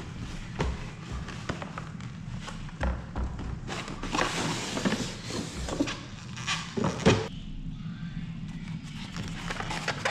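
A cardboard box being unpacked by hand: rustling and scraping of cardboard, plastic wrap and foam packing, with scattered knocks and a thud about seven seconds in.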